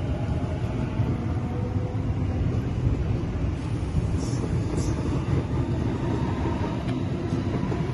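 Sydney Trains Waratah double-deck electric train moving out past the platform: a steady rumble of wheels on the rails, with a faint motor whine over it.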